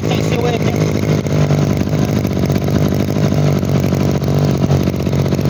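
Two-stroke engine of a Shindaiwa 240 brush cutter running at a steady speed.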